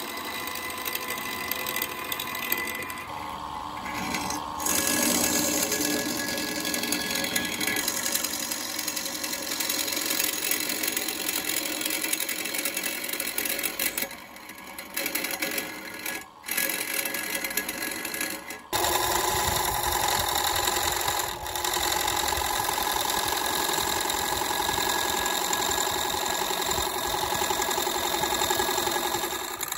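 Wood lathe running while a hand-held turning tool cuts into a spinning wooden bowl blank: a steady mechanical hum with the noise of the cutting over it. The sound drops out briefly twice around the middle and changes abruptly about two-thirds of the way through.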